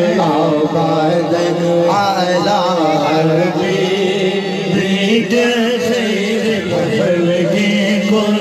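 Devotional zikr chanting in men's voices, long held notes wavering and gliding in pitch without pause.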